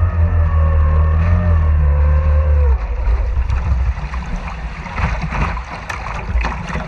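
Racing outboard motor on a small hydroplane idling with a slightly wavering pitch, then cutting off about three seconds in. After that comes a quieter, rough noise with a few short knocks.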